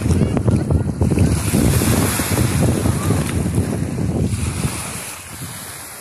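Wind buffeting the phone's microphone in uneven gusts over small Black Sea waves washing onto the sand, fading out near the end.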